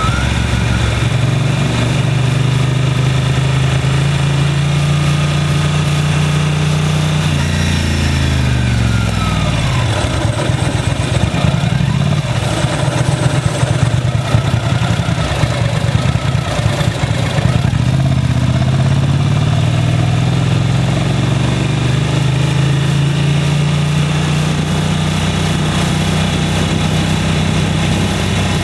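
Motorcycle engine running while riding, over a steady rush of wind noise. About seven seconds in the engine note drops quickly as the bike slows, then from about eighteen seconds it climbs gradually again as the bike picks up speed.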